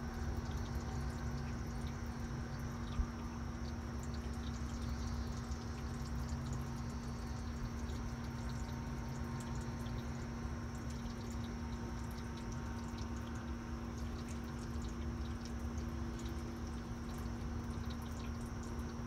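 Rainwater running and dripping as a thunderstorm ends, with scattered small drips, over a steady low hum.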